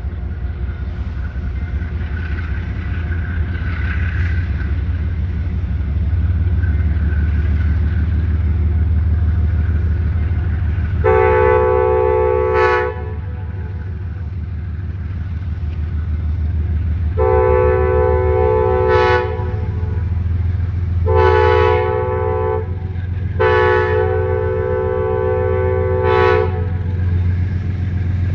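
Amtrak diesel locomotive's multi-chime air horn sounding four blasts in the long, long, short, long pattern of the grade-crossing warning, starting about eleven seconds in, over the steady low rumble of the locomotive's diesel engine.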